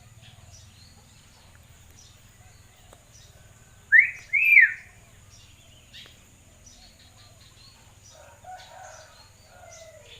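Common hill myna (beo) giving two loud, short whistles about four seconds in, each rising then falling in pitch, with softer calls near the end.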